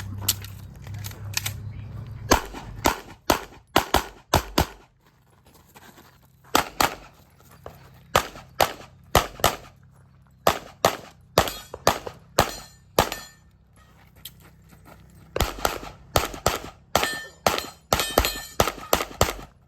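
A handgun is fired repeatedly through a practical-shooting stage. The shots come mostly in quick pairs, with short pauses between strings, and there is a fast flurry of shots near the end.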